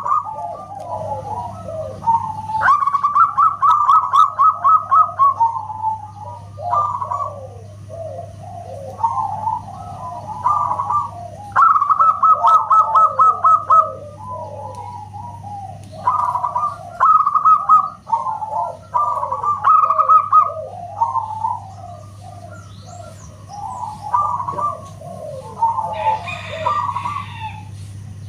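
Zebra dove (perkutut) cooing: repeated runs of rapid staccato notes alternating with falling coos, over a steady low hum.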